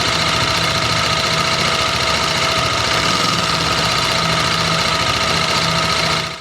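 TVS Apache RR310 single-cylinder engine idling hot with its radiator fan running, a steady whine over a fast clatter. The owner hears the clacking as louder than normal once the engine is warm, and suspects the cam chain tensioner or valve clearance; a mechanic places it in the top end, at the camshafts.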